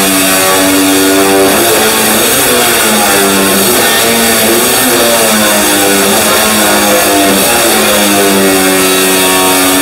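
Guitar-led background music over an angle grinder cutting sheet steel, its steady high whine running throughout.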